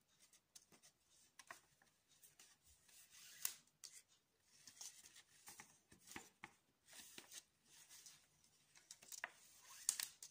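Faint rubbing and swishing of thin macrame cord being pulled through and tightened by hand into hitch knots, with scattered small ticks of fingers on the cord. Two louder swishes, a little past three seconds in and near the end.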